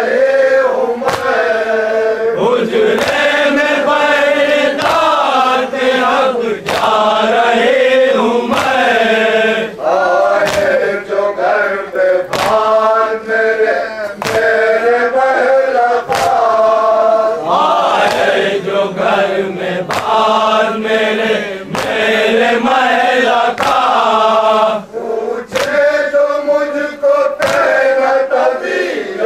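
Men chanting a nauha, a Shia lament, in unison, with the open-palm chest-beating of matam landing as sharp slaps about once a second.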